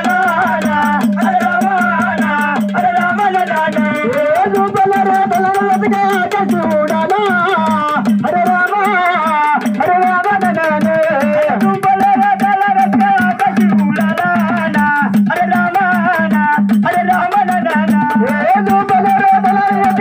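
Gondhal folk music: fast, continuous sambal drumming under a wavering melody line.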